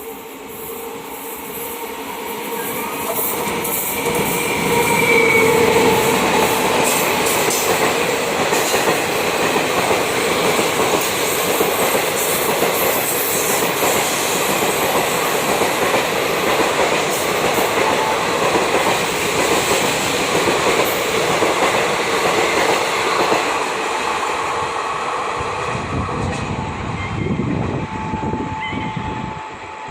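Express train passing at high speed: the rumble and wheel clatter build over the first few seconds, stay loud for about twenty seconds, then ease off as the train goes by.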